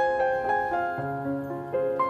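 Background piano music: a gentle melody of notes struck in quick succession.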